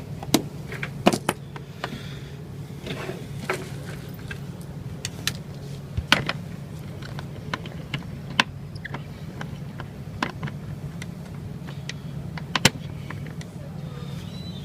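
Metal casement window hardware being handled: scattered sharp clicks and taps as the washer-arm clips are snapped back into place, over a steady low hum.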